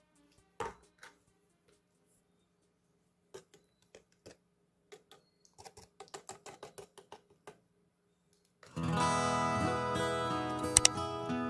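A few soft, scattered taps and clicks, then acoustic guitar music starts suddenly about nine seconds in and is by far the loudest sound.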